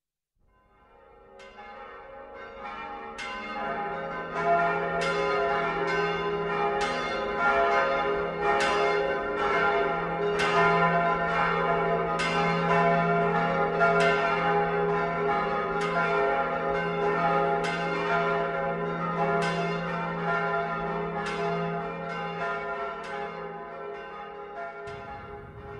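Church bells ringing a steady peal, one strike about every three-quarters of a second, with the notes ringing on into each other. It fades in over the first few seconds and eases down near the end.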